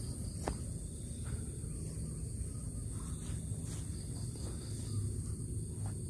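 Steady high-pitched insect drone over low outdoor rumble and rustle.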